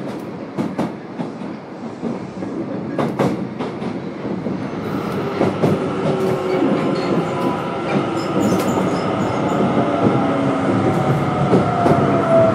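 Osaka Metro 10A series subway train with a Hitachi IGBT-VVVF inverter running: a few sharp wheel clacks over rail joints near the start, then the running sound grows louder and a motor whine slowly falls in pitch as the train slows on the approach to a station.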